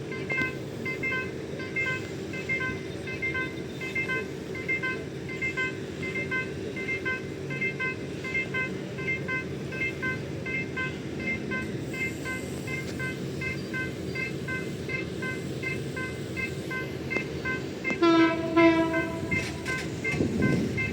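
TCDD DE 22000-class diesel-electric locomotive running with its engine droning, while an electronic warning ding repeats about twice a second. Near the end the locomotive's horn sounds one short, loud blast.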